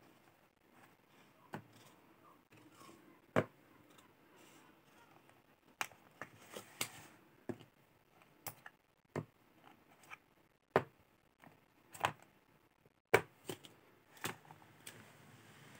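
Small plastic HIMI gouache cups being pulled out of a plastic palette tray and set down on a table: about a dozen light, irregularly spaced plastic clicks and knocks.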